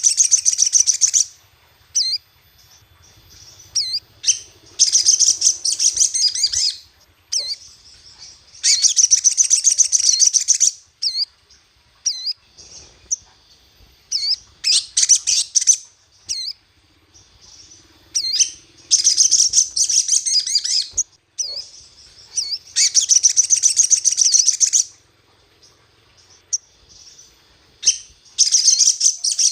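Sogon (sogok ontong) songbird singing: loud bouts of rapid, high-pitched chirps about two seconds long, repeating every few seconds, with single chirps between bouts. It is a lure recording meant to provoke a caged bird into singing.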